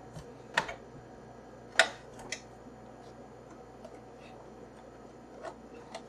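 Scattered small metal clicks and taps as a screwdriver backs screws out of the sheet-metal carrier holding an iMac G3's DVD-ROM drive, and the carrier is shifted by hand. The loudest click comes a little under two seconds in.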